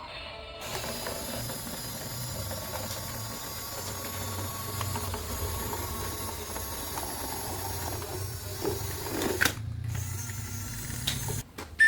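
A small geared mechanism whirring steadily over a low hum, which stops abruptly about nine and a half seconds in, followed by a few light knocks.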